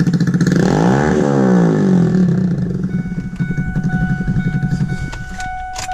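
A 7.3 diesel truck engine being cranked over by the starter in a fast pulsing rhythm without firing: the engine has been run out of fuel and is not yet primed. Steady electronic beeping tones join about halfway through.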